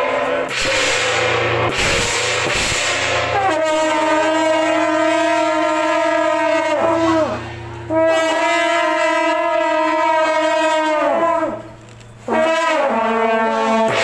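Wind instruments playing three long held notes, each sliding down in pitch as it dies away, with short breaks between them.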